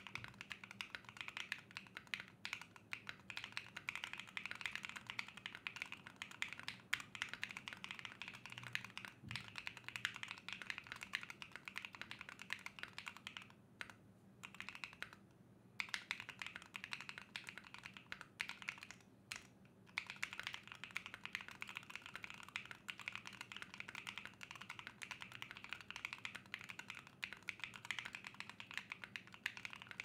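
Fast, continuous typing on a Neo70 mechanical keyboard with Salmon Reborn switches and a PE foam mod: a dense stream of keystroke clacks, broken by a few short pauses around the middle.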